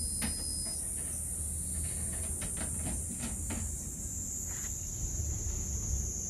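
Steady high-pitched drone of insects, with a few faint ticks a couple of seconds in.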